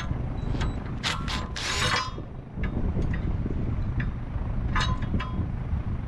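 Cordless impact driver hammering briefly on the screw of a homemade tire bead breaker, a short rattling burst about two seconds in. Sharp metallic clicks and clanks of the tool sound before and after it.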